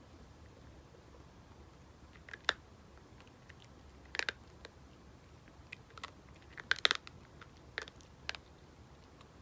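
Miniature dachshund biting and chewing at dried sweet potato treats from a Kong toy: a handful of short, sharp crunches and clicks at irregular intervals, the loudest about two and a half and seven seconds in.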